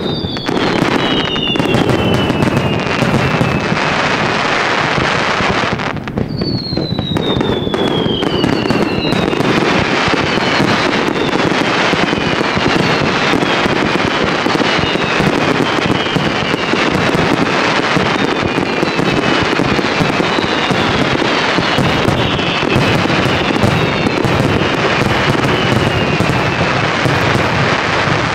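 Fireworks display: a dense, continuous barrage of bangs and crackling, with long falling whistles over it. There is a brief lull about six seconds in.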